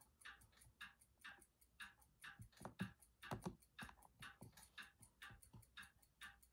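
Faint, even ticking about four times a second, with a few louder clicks about halfway through.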